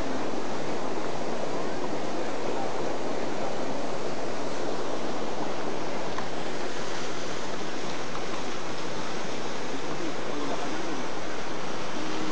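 Water rushing steadily: an even, unbroken hiss with no rhythm or pauses.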